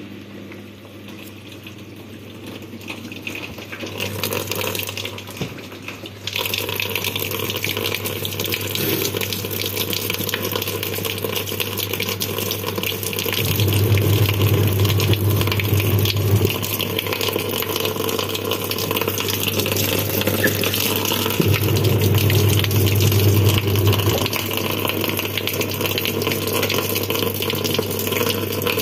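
Water pouring into the plastic wash tub of a twin-tub washing machine, filling it for a rinse; the pouring gets louder about six seconds in. A low steady hum swells twice, for about three seconds each time.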